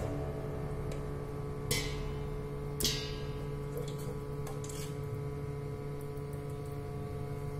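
Raw chicken pieces sliding and dropping from one stainless steel bowl into another, with two short knocks about a second apart, over a steady hum.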